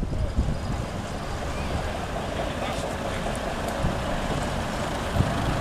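Leyland Atlantean double-decker bus driving slowly past, its rear-mounted diesel engine running with a steady low rumble.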